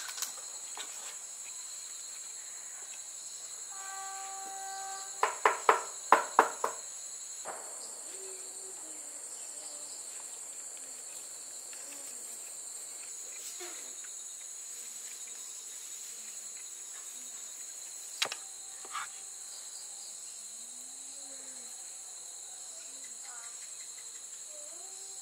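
Steady, high-pitched chorus of insects chirring. A quick run of sharp knocks stands out about six seconds in, and a single click comes later.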